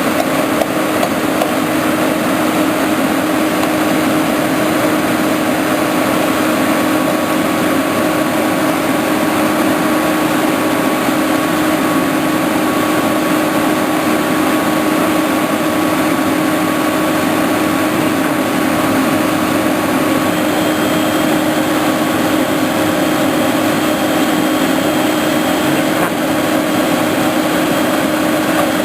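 An engine running steadily at an even speed, with a faint high tone that shifts to a higher pitch about two-thirds of the way through.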